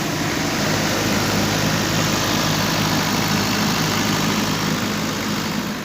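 Heavy engine idling steadily, with a constant low hum under loud rushing noise; it cuts off suddenly at the end.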